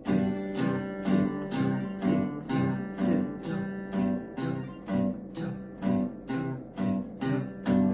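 Acoustic guitar strummed in a steady rhythm, about two strums a second.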